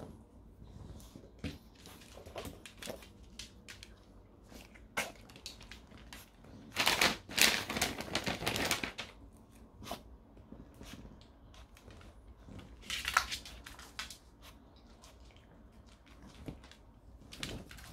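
Small toy dogs moving about on a laminate floor, their claws clicking and tapping irregularly. A louder noisy rustling stretch comes about seven seconds in and lasts around two seconds, with a shorter one around thirteen seconds.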